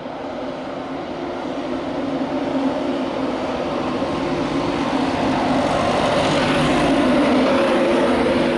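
LNER Class 91 electric locomotive and its Mk4 coaches running into the platform and passing close by, growing steadily louder: a steady electric hum under a rising rush of wheels on rail, loudest as the coaches go past near the end.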